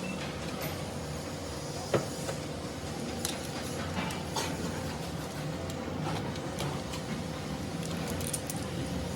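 Metal tools or pump parts clinking and knocking now and then over a steady workshop hum, with one sharper knock about two seconds in.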